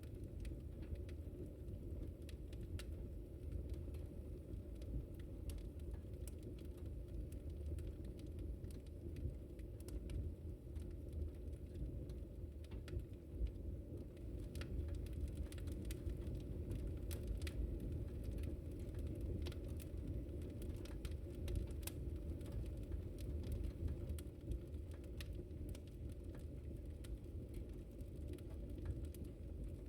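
Wood fire crackling, with scattered sharp pops and snaps over a low, steady rumble.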